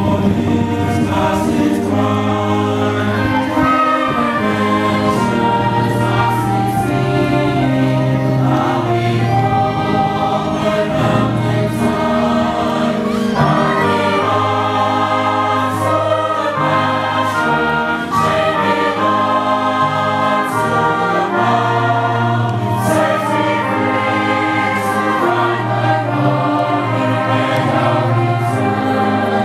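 A mixed choir singing in harmony, accompanied by a concert band with brass, including sustained low notes underneath.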